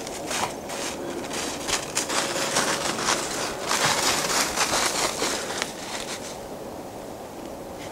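Footsteps crunching and crackling through dry leaves and brush on a woodland floor, a quick run of steps that is loudest mid-way and tails off after about six seconds.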